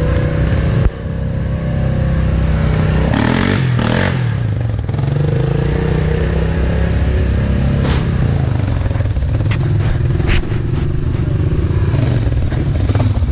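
Off-road vehicle engine running steadily while riding, pitch shifting with the throttle, with a few sharp knocks and clatter in the second half.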